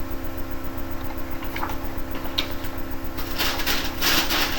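Comic books and their packaging being handled: a few light clicks, then from about three seconds in a loud crinkling rustle as the next comic is pulled out. A steady low electrical hum runs underneath.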